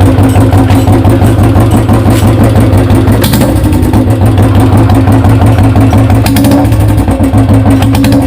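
Royal Enfield Classic 350's single-cylinder engine idling with a steady, loud thump through a bend pipe and long bottle ('Punjabi') silencer. It has no manual decompressor fitted.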